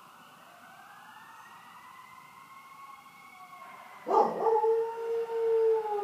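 A fire truck siren wails faintly, slowly rising and falling. About four seconds in, a dog breaks into a loud, long howl, held on one steady pitch as it howls along with the siren.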